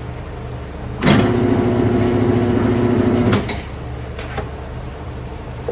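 Tire changing machine's motor running for about two seconds, a steady mechanical hum with a noisy edge, starting about a second in and stopping sharply.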